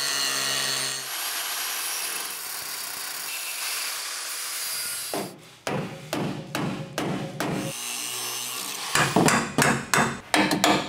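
Angle grinder cutting into the steel rivets of a truck's factory bump stop bracket: a steady grinding run for about five seconds, then a string of short, sharp hits and broken-up bursts.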